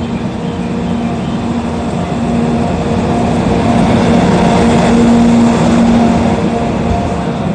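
EF64 1031 DC electric locomotive, running alone without a train, moving slowly past on departure: a steady machine hum with wheel-on-rail rumble that swells to its loudest about five seconds in, then eases.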